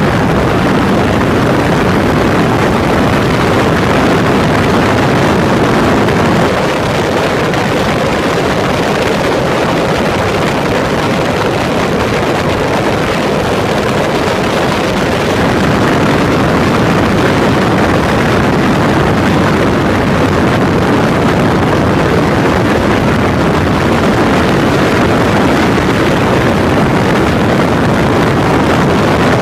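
Yamaha SRX400's single-cylinder four-stroke engine running while the motorcycle is ridden, with wind rushing over the tank-mounted phone's microphone. The sound drops a little about seven seconds in and swells again around sixteen seconds.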